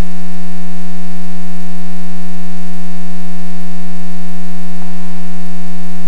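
Loud, perfectly steady hum with a stack of evenly spaced overtones in the cockpit audio of a taxiing Luscombe light aircraft.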